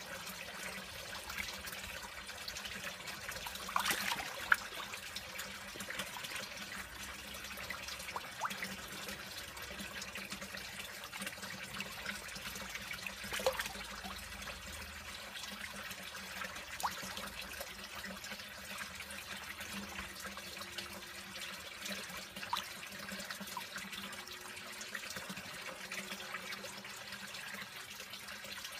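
Koi carp crowding and splashing at a pond's surface, with sloshing and gulping over a steady trickle of water. A few sharper splashes stand out, the loudest about four seconds in and again around thirteen seconds.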